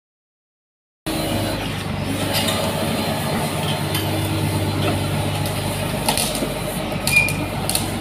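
Silence for about the first second, then a Komatsu D85ESS-2 bulldozer's diesel engine running steadily, with a few short clicks over it.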